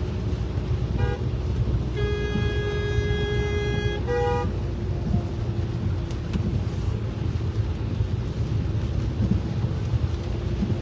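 Steady low road and engine rumble inside a moving car, with car horns honking: a short toot about a second in, a long blast of about two seconds starting about two seconds in, and another short toot right after it.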